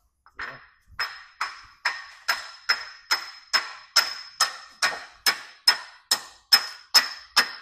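Steady hammer strikes on a big socket, a little over two a second, each with a short metallic ring, driving the back bearing race of a John Deere 4230 Syncro-Range transmission's top shaft into the case. The race is going in easily.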